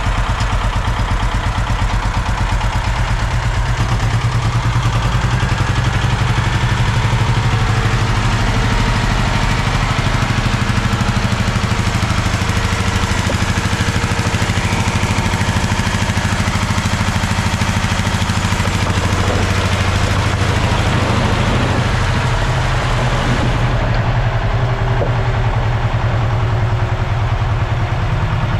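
Engine of a piece of site machinery running steadily at low speed, with no change in pace.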